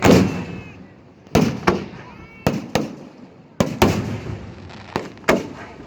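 Fireworks going off: a string of sharp bangs, about nine in six seconds, each trailing off in a short echoing rumble, the loudest right at the start.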